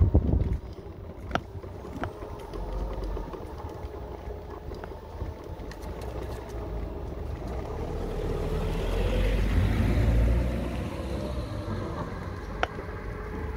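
Mobility scooter driving along a tarmac lane: a steady thin electric-motor whine over low tyre rumble, with a few knocks right at the start and light rattles and ticks from the scooter throughout. About two-thirds of the way in a car's engine and tyre noise swells and fades as a car goes by.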